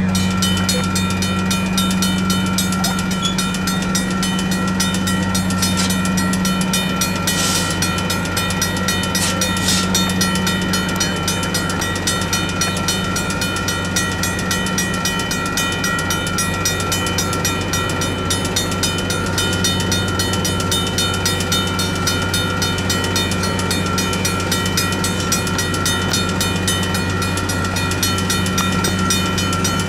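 Railroad crossing bells ringing steadily in a rapid, even run of strikes: a Safetran mechanical bell together with a WCH electronic bell. Under them runs a steady low hum from a train at the crossing.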